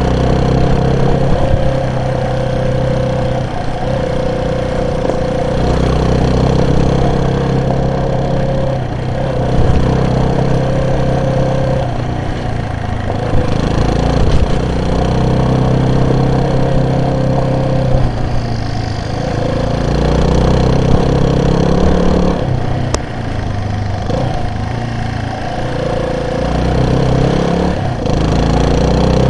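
Vehicle engine running under way, its pitch rising and falling every few seconds as the throttle and gears change.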